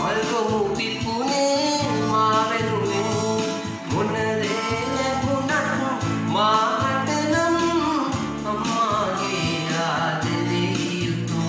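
A man singing a Sinhala song with a melody that glides and wavers, accompanied by an electronic keyboard.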